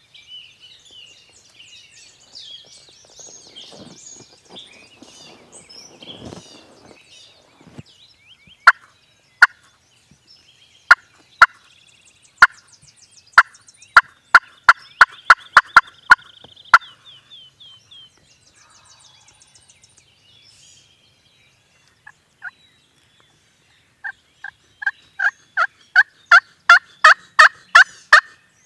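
Woodhaven Legend Slate, a pot-style slate friction turkey call worked with a striker, making sharp, raspy hen yelps. A few single yelps come first, then a string of them, and near the end a longer run of about a dozen at roughly three a second, growing louder. Songbirds sing faintly at the start.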